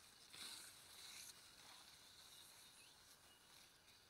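Near silence: faint outdoor field ambience, with a few soft rustles in the first second or so.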